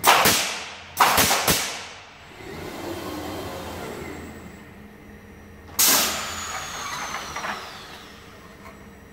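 Robot-mounted pneumatic nailers firing three sharp shots into a wooden frame, the second and third half a second apart, followed by a steady machine hum as the robot moves. Near six seconds a loud burst of air hiss comes, with a thin falling whine after it.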